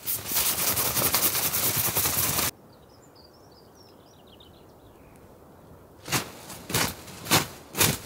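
A frozen, snow-crusted tarp being shaken, with ice and snow clattering and crackling off it in a dense burst for about two and a half seconds. It stops suddenly, leaving quiet with a small bird chirping, and near the end comes a series of crunches in the snow, about two a second.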